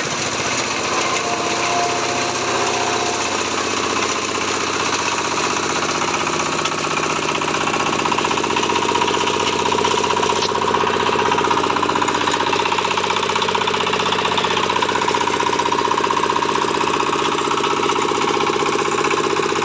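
Engine-driven palm frond chopper and compost grinder running steadily.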